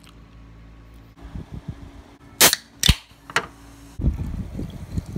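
An aluminium can of root beer snapping open with two sharp pops, then being poured into a glass jar, the soda splashing and fizzing as it fills.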